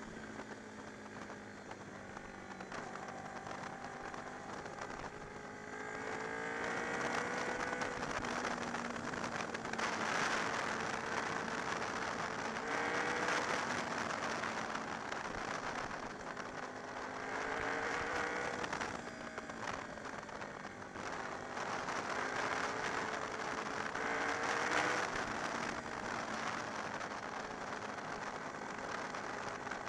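Honda VFR motorcycle's V4 engine running at road speed, its pitch rising and falling back several times as the throttle is opened and closed through the bends, under steady wind rush on the microphone.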